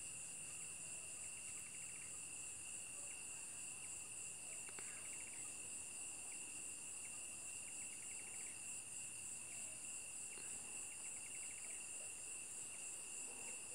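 A faint insect chorus: steady high-pitched trilling that never stops, with short clicking trills breaking in every second or two.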